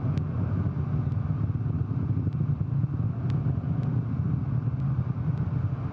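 Soyuz-2.1a rocket's engines heard from far off as a steady low rumble with a fluttering, crackly texture and a few faint scattered ticks.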